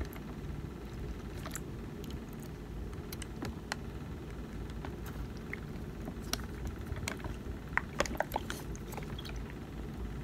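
Faint scattered clicks and taps of a plastic Nerf gun being handled and knocked about in a plastic tub of water, most of them about eight seconds in, over a low steady hum.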